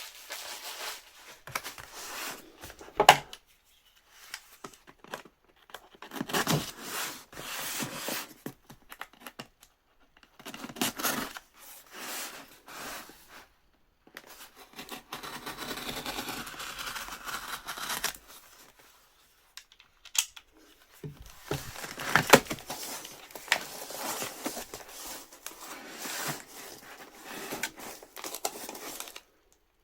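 A shipping package being opened by hand: its packaging tears and crinkles in irregular bursts, with a few sharp snaps and a longer steady rustle about halfway through.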